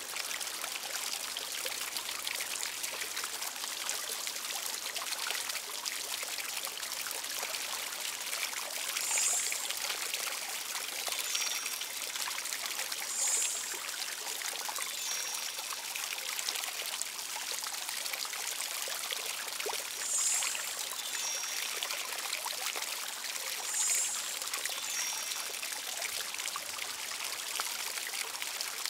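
Steady running, trickling water. Four brief high-pitched sounds come over it, a few seconds apart.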